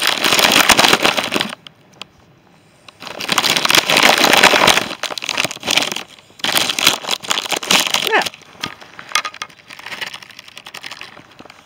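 A plastic bag crinkling and rustling right against the microphone as it is handled, in several bursts with short pauses between.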